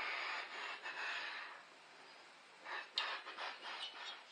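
A breathy rush of noise for about a second and a half. After a short pause comes a run of light clicks and knocks, one sharper than the rest, as the Wisconsin THD engine's cylinder head is handled and brought down over the block.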